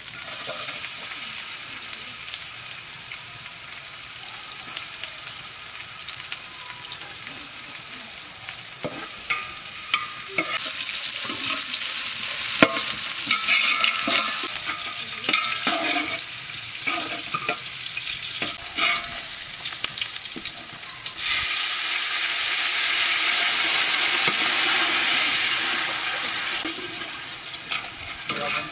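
Food frying in hot oil in a large aluminium pot, stirred with a metal spatula that scrapes and knocks against the pot. A steady sizzle swells loudly twice, about ten seconds in and again about twenty seconds in, each time dying back down after a few seconds.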